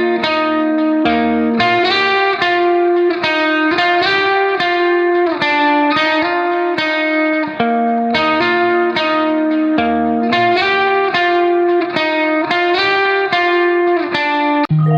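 Background music: a plucked guitar playing a quick run of notes, with a low bass note coming in near the end.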